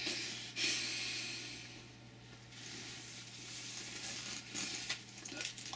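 A man breathing slowly while lying back, soft breathy rushes that swell and fade over a second or two each, over a faint steady electrical hum.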